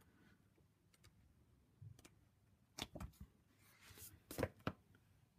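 Faint paper rustles and a few light taps as large softcover comic albums are handled and swapped on a table, clustered in the second half.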